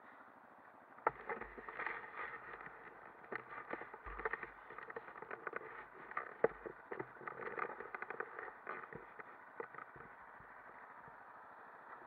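Muffled rumble and rattle picked up by a camera mounted on a moving quad bike, with irregular crackling knocks from about a second in until about nine seconds in.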